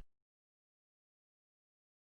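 Silence: the soundtrack is completely empty after a synthesized voice's last word cuts off right at the start.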